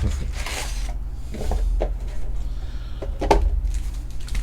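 Rustling and light knocking as trading-card packs and the box are handled, with a brief rustle about half a second in and short knocks later, over a steady low hum.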